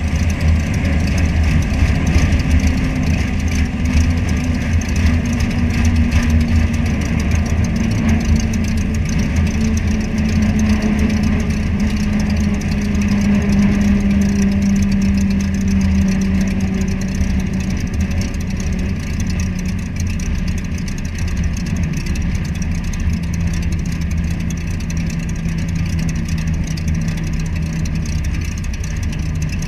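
Sonex light aircraft rolling along the runway, heard from a camera under the wing: a continuous engine and wind rumble with a drone that slowly falls in pitch.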